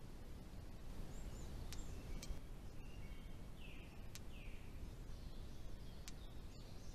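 Faint outdoor forest ambience: a low steady rumble with a few short bird chirps about a second in and again around three and a half to four seconds in, and scattered sharp clicks.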